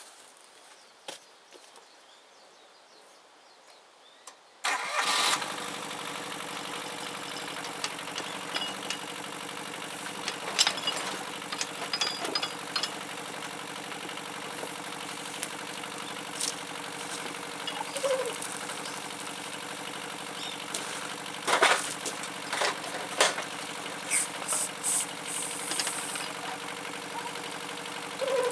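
Mini excavator's diesel engine comes in suddenly about five seconds in and then runs steadily, with occasional sharp metallic clanks and knocks over it.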